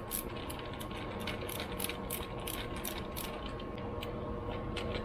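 Ratchet wrench clicking as a bolt on a carburetor is worked loose, about three clicks a second, easing off about three and a half seconds in.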